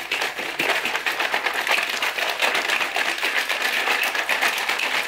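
Plastic shaker bottle of drink being shaken hard and fast to mix in a powdered drink mix: a rapid, continuous rattling and sloshing.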